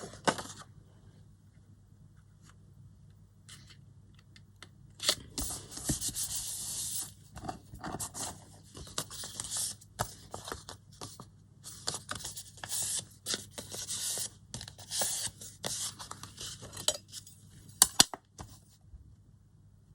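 Paper being torn by hand in a series of short rips, with paper rubbing between them and two sharp clicks near the end.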